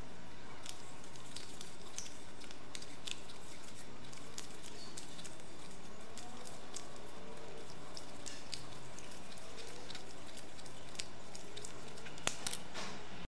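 PTFE thread-seal tape being pulled off its spool and wound onto the threads of a chrome shower-mixer fitting: faint scattered crackles and small clicks over a steady hiss, with two slightly sharper clicks near the end.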